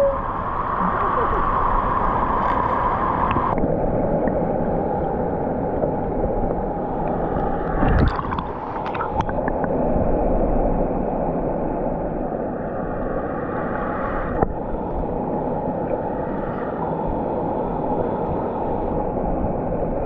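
Muffled rushing, gurgling river water heard through a camera held underwater, with a few brief knocks around eight to nine seconds in.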